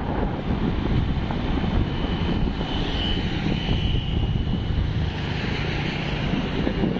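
Wind buffeting the microphone on a moving motorcycle, over the low hum of its engine and road noise. A faint high whine comes in briefly around the middle.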